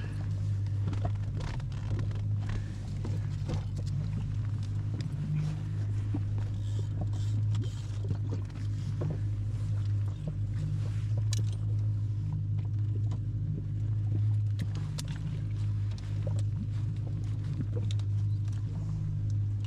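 Boat's outboard motor running steadily at low speed, a constant low hum, with scattered light knocks and taps on top.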